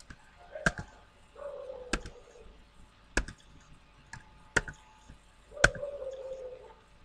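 Computer keyboard keys pressed slowly one at a time: five separate sharp key clicks, a little over a second apart, as a short code is typed key by key.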